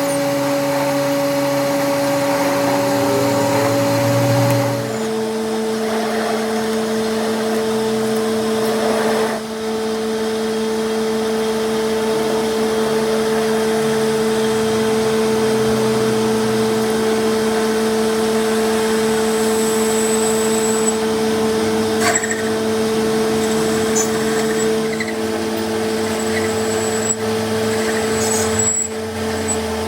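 A machine running with a steady hum; its pitch drops a step about five seconds in and then holds steady, with a few faint clicks later.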